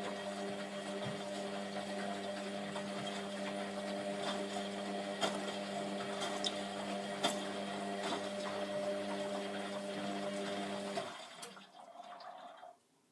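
Hotpoint WMF720P washing machine's motor turning the drum with a steady hum, water sloshing and scattered light clicks; the motor stops about eleven seconds in, leaving a fainter sound that dies away.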